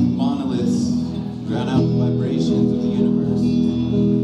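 Stratocaster-style electric guitar played through an amplifier, slow notes and chords ringing out and sustaining. A voice comes in with a few short phrases over it in the first two seconds.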